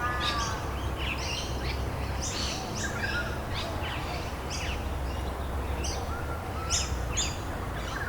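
Dawn chorus of several birds chirping and calling in quick, short notes, over a steady low background rumble.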